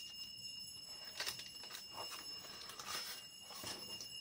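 Faint handling sounds of small camera accessories and their packaging: a few soft rustles and light knocks, over a steady faint high-pitched whine.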